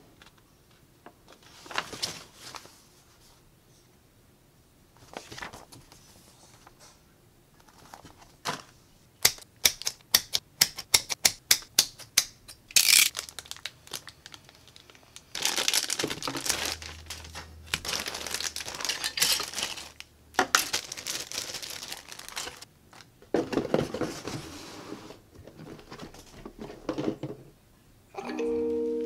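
Clear plastic wrapping crinkling and tearing as it is cut open with a hobby knife, mixed with paper instruction sheets rustling and a quick run of sharp clicks about ten seconds in. A chiming tone starts just before the end.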